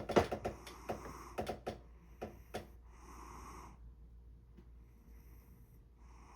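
Snoring: a run of short, sharp snorting clicks in the first couple of seconds, then a long, noisy snoring breath about three seconds in, with fainter breaths after it.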